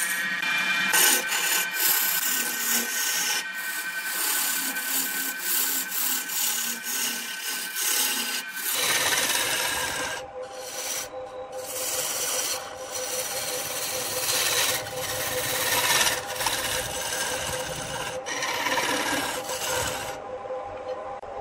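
Gouge cutting into jackfruit wood spinning on a wood lathe: a continuous scraping, shaving sound as curls of wood peel off. About nine seconds in the sound changes and gets fuller and lower as the cut moves to the flat face of the vase's base.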